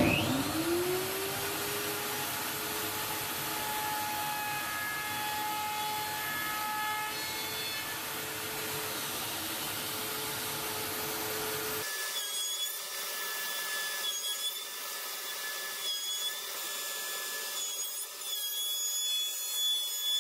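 Power sander running on a wooden table top with 120-grit paper: its motor spins up at the start and runs steadily, then about twelve seconds in it gives way to a thinner, higher-pitched sanding sound with a faint whine.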